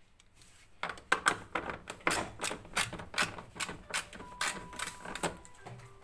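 Ratchet socket wrench clicking steadily, about four clicks a second, as it turns a bolt on a twin tub washing machine's spin motor mount. The clicking starts about a second in.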